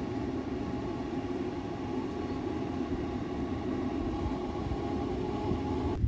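Arc welding machine switched on and running without welding, giving off a steady hum that cuts off suddenly near the end.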